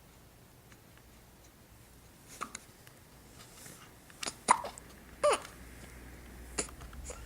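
A four-week-old baby hiccuping: about five short, sharp hiccups at irregular spacing, beginning about two seconds in, one with a small squeak of voice.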